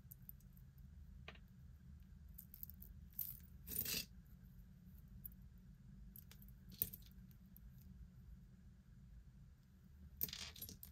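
Small metal earrings and pendants clinking faintly as they are handled in the palm and set down on the table: a few light clicks spread out, the loudest about four seconds in and a short cluster near the end, over a low steady hum.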